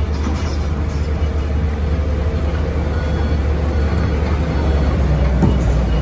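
Diesel engines of a Caterpillar excavator and a small crawler dozer running steadily at a construction site, a deep, even drone.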